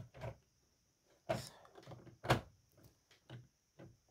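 Irregular plastic clicks and clacks from the LEGO Haunted House's drop-tower ride mechanism, its chain and gears, as the car climbs the tower. There are two louder knocks about a second apart in the middle and a few lighter ticks toward the end.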